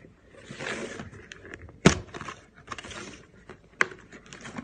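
Hands handling a camera's cardboard box and its packing: rustling with scattered clicks and taps, and a sharp knock about two seconds in and another near four seconds.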